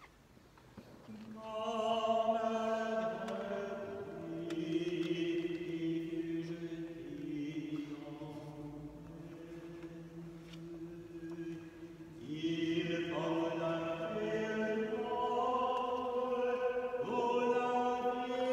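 Liturgical chant sung in a single melodic line: slow, held notes in phrases, beginning about a second in, with a brief break about twelve seconds in before the next phrase.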